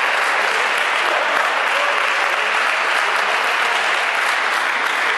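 Audience applauding: steady clapping after a point in a table tennis match.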